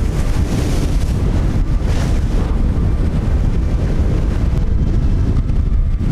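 Strong wind buffeting the microphone over the wash of rough surf against the jetty rocks, with louder rushes of water about a second in and about two seconds in.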